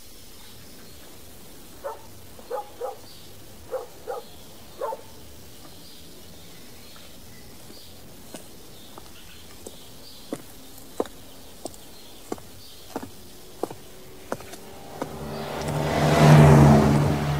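Audio-drama sound effects over a steady low hiss. A few short pitched chirps come in the first few seconds, then a run of sharp ticks about every two-thirds of a second. Near the end a loud whooshing swell rises and falls, the loudest sound.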